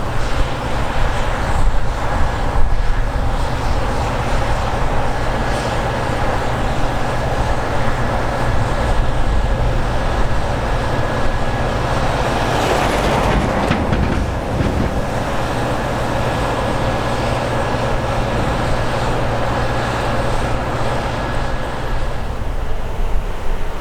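Heavy harvest machinery running steadily, with a deep engine rumble and a faint steady whine, growing louder for a moment about halfway through.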